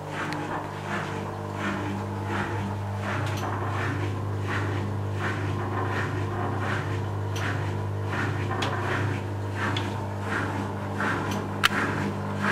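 The original 1992 Askoll magnetic drain pump of a Zanussi Super Jetsystem washing machine running: a steady low hum with irregular short rushing noises over it, and a single sharp click near the end. It is slightly noisy, which the owner puts down to its age.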